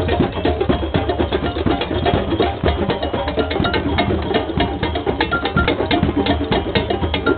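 Drum circle: many hand drums and other percussion playing together in a dense, steady rhythm.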